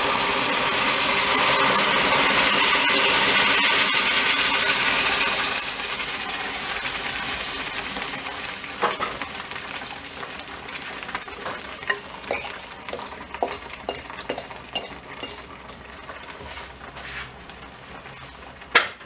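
Sweetened milk poured into a hot stainless steel frying pan of butter-toasted semolina, hissing and sizzling loudly for about five seconds as it hits the pan, the liquid stage of making semolina helva. The sizzle then fades while a wooden spatula scrapes and taps against the pan, with a sharper knock near the end.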